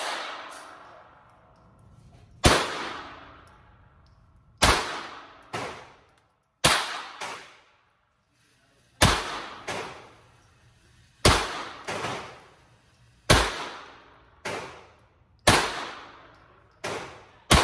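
Pistol shots fired one at a time in an indoor shooting range, about a dozen of them at one- to two-second intervals. Each is a sharp crack followed by an echo off the range walls.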